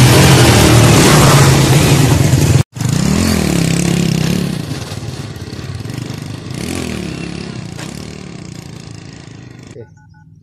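A loud engine runs close by and cuts off abruptly after about two and a half seconds. Then a motorcycle rides away, its engine pitch rising and falling as it accelerates, fading into the distance. Near the end there are two short phone keypad beeps as the number 9 is dialled twice.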